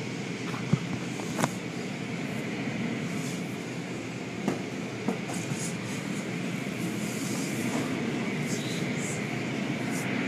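Automatic car wash tunnel machinery running: a steady mechanical rumble and hiss, with a few sharp knocks.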